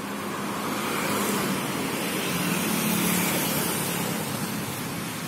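City road traffic passing: car and motorbike engines with tyre noise, swelling to a peak about three seconds in and then easing off.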